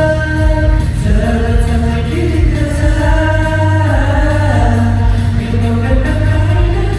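Live pop song through a concert sound system: long held sung notes over a backing track with a strong, steady bass.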